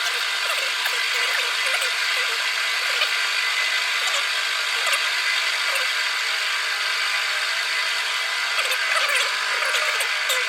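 A power tool running steadily while cutting a steel block, a continuous hiss with a steady high whine.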